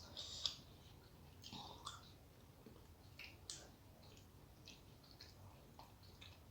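A person eating rice and curry: quiet wet chewing and mouth clicks, scattered irregularly, the sharpest about half a second in and around three and a half seconds.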